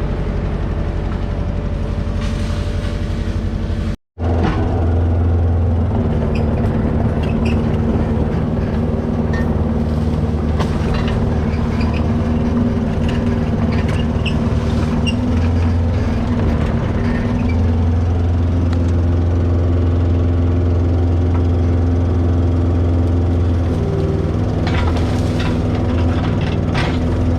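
Diesel engine of heavy land-clearing machinery running steadily under load, with a strong low hum and scattered cracks and knocks. The sound drops out briefly about four seconds in, then comes back at the same steady drone.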